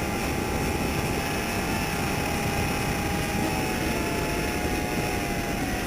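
Tiny nano quadcopter's motors and rotors whining steadily in flight, the pitch dipping slightly now and then with throttle changes, over a low rumbling noise.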